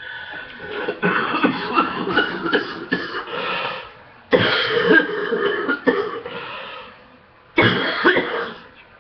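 A sick person's morning coughing fit: a long run of coughs, a fresh bout about four and a half seconds in, and one more cough near the end.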